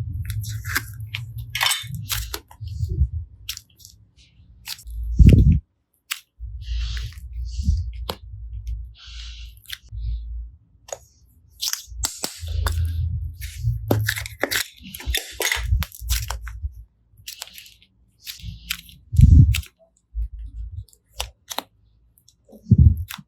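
Slime being handled and squeezed by hand: sticky crackling, clicking and popping in irregular bursts, with three louder thumps.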